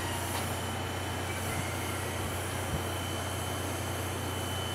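C58-class steam locomotive standing at rest with steam venting from the top of its boiler in a steady hiss, over a low steady hum, with a couple of faint knocks.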